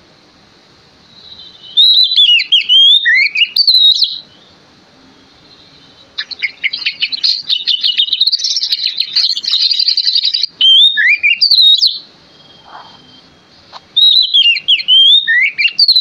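Oriental magpie-robin singing a loud, full-voiced song, the kind played as a lure to set other magpie-robins singing. It comes in four phrases of sweet, sliding whistles with short pauses between them, the second a long fast chattering run.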